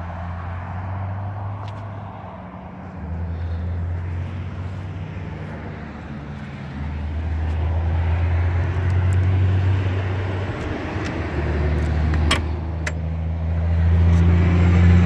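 Road traffic on a nearby highway, a steady low rumble that swells and eases as vehicles pass. Two sharp clicks come close together near the end.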